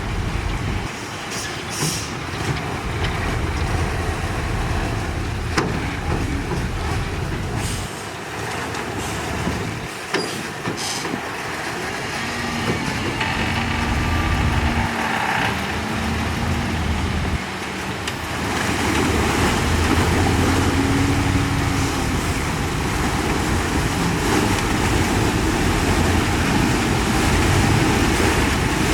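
Ten-wheel diesel dump truck running with a steady low rumble, a short wavering whine heard twice, and the overall noise growing louder about two-thirds of the way through.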